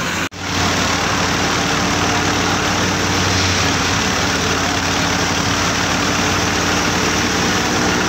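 Tractor engine and wheat thresher running steadily: a constant engine drone under a broad rushing noise. The sound cuts out for a moment just after the start.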